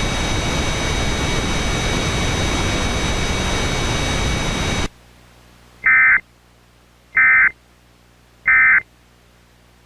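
Loud static hiss with faint steady high tones, cut off suddenly about five seconds in. It is followed by three short, identical warbling data-tone bursts a little over a second apart: the Emergency Alert System's SAME end-of-message signal, sent three times to close the alert.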